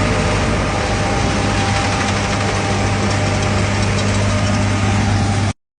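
Steady running of a John Deere S785i combine harvester, a loud, even machine hum with a strong low drone. It cuts off suddenly near the end.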